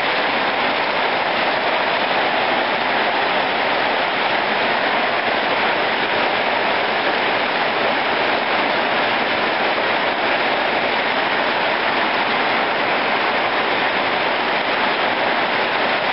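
Steady rain falling on a wet concrete yard and plants, an even, unbroken hiss.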